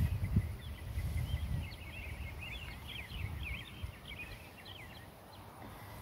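Birds chirping, many short quick chirps, over a low rumble that fades out after about two seconds.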